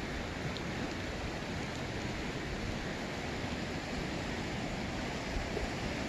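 Steady rush of the Truckee River flowing over a shallow, rocky riffle.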